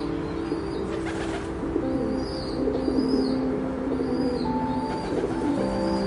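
Dove cooing in low, drawn-out notes, with small birds chirping high and briefly about once a second behind it.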